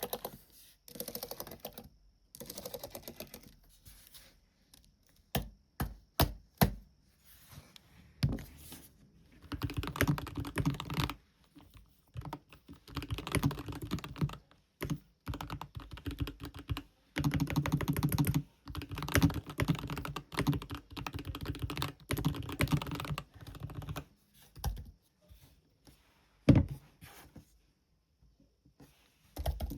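Typing on a computer keyboard: runs of rapid keystrokes lasting a few seconds each, separated by short pauses, with a few single sharp key presses in between.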